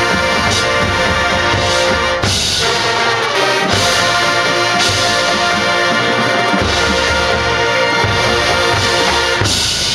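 Marching band playing loud, full brass chords over percussion, the chords changing every second or two.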